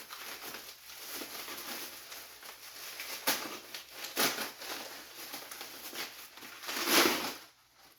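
Handling noise from an unboxed 3D-printed arm wrestling handle and its wrapping: rustling with a few light knocks, and a louder rustle about seven seconds in.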